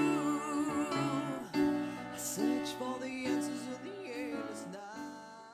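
A song with a singing voice over plucked-string accompaniment, fading out near the end.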